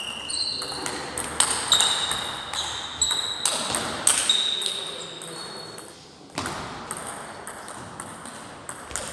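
Table tennis rally with a plastic 40+ ball: irregular sharp clicks of the ball on rubber paddles and the table top, many with a short ringing ping, about two a second, with a brief lull near the middle. More clicks come from the game at the next table.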